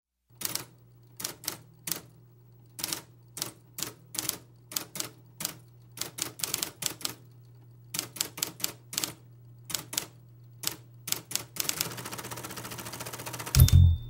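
Typewriter keys clacking in an irregular rhythm over a steady low hum, the opening sample of a recorded track. Near the end comes about a second and a half of rapid, dense clatter, then a short high ring and loud low bass and drum hits as the band comes in.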